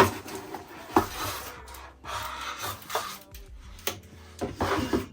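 Packaging being handled while a wig box is unpacked: irregular rustling and rubbing with a few sharp knocks, the sharpest right at the start and about a second in.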